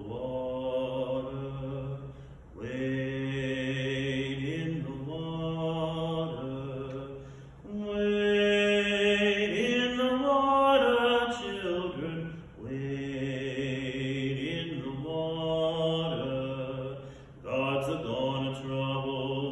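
A man singing a hymn solo with no accompaniment, in long held phrases with short breaths between them. The voice climbs higher and louder in the middle phrase, then settles back down.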